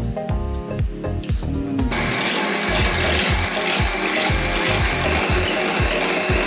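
Background music with a steady beat; about two seconds in, an electric hand mixer starts up and runs steadily with a high motor whine, its beaters whipping cream in a glass bowl.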